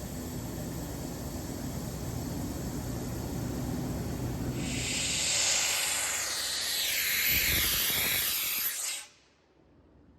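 SAMP 10 hp three-phase electric air compressor running with a steady hum. About four and a half seconds in, a loud hiss of compressed air being released starts and carries on for about four seconds. The hum falls away under it, and everything cuts off suddenly near the end.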